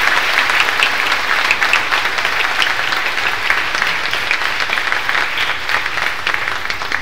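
Congregation applauding: many hands clapping together, easing off gradually toward the end.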